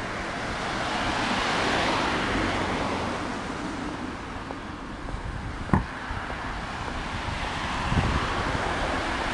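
Road traffic: a car's tyre noise swells and fades over the first few seconds, then a steady traffic hush, with a sharp click about six seconds in.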